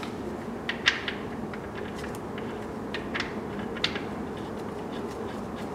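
Oil fill plug being screwed back into the gearbox casing, giving a few sharp metal clicks and clinks: a pair about a second in, then two more around three and four seconds in. A steady low hum continues underneath.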